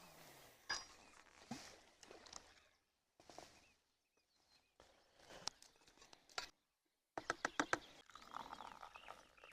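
Faint outdoor handling noises in short spliced snippets: scattered clicks and rustles, with a quick run of sharp clicks about seven seconds in.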